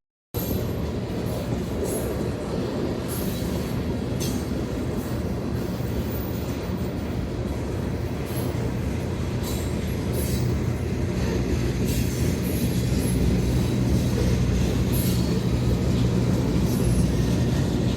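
Freight train cars rolling past: a steady heavy rumble of wheels on rail, broken by irregular sharp clicks and squeals from the wheels. It starts after a split-second gap.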